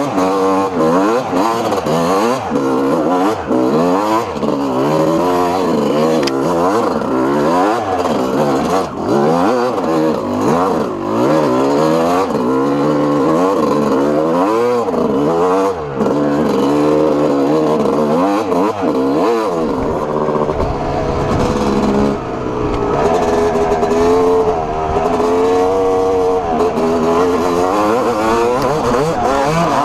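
Yamaha YZ250 two-stroke single-cylinder engine revving up and down over and over as the throttle is worked on a rough trail. About twenty seconds in the revs swell more slowly and steadily, and a low wind rumble on the microphone joins.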